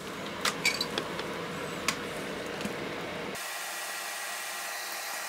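Bench solder fume extractor fan running with a steady airflow hiss, with a few light clicks in the first two seconds.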